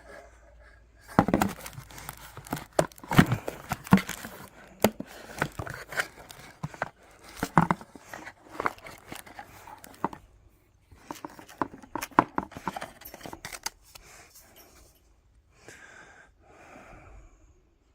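Packaging being handled and opened by hand: crinkling, tearing and rustling with many sharp clicks and knocks, busiest for most of the stretch and fading to quieter rustling near the end.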